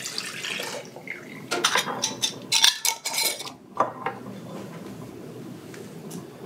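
Hot chicken broth poured from a metal ladle through a plastic canning funnel into a glass pint jar, followed by a run of sharp clinks and knocks as the ladle, funnel and glass jars are handled on the counter.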